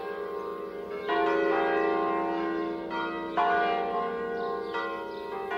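Church bells ringing, with fresh strokes about a second in, around three and a half seconds and near the end, each note ringing on and overlapping the last.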